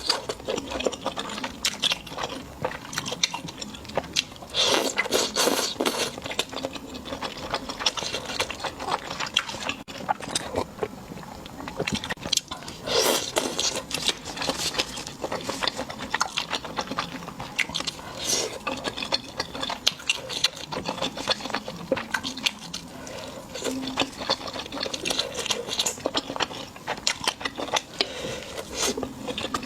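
Close-miked eating sounds: crisp food being bitten and chewed with dense, irregular crunching and crackling, in louder flurries now and then.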